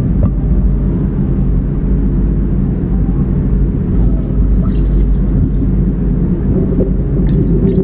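A loud, steady low rumbling drone, with a few faint clicks about five seconds in.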